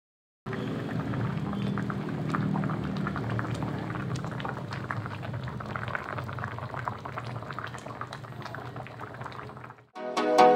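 Pot of fish stew boiling in its broth, a steady bubbling with many small pops and crackles. Music starts right at the end.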